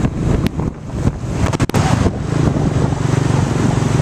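Motorbike engine running while riding in traffic, with wind buffeting the microphone. A few sharp clicks come about a second and a half in, and from about two seconds on the engine settles into a steady low drone.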